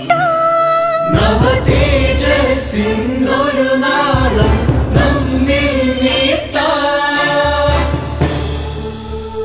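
Song with singing over a backing track. A single voice holds a note, then about a second in a group of voices and a pulsing beat come in together.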